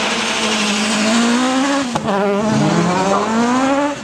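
Suzuki Swift rally car's engine revving hard, with tyres squealing on tarmac. About two seconds in there is a sharp crack as the engine pitch drops, then it climbs again, as with a gear change.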